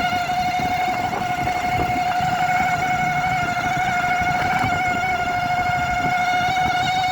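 Motorcycle instrument cluster (meter) giving off a continuous buzzing tone that holds one pitch with a slight waver, an unwanted noise that is a fault in the meter.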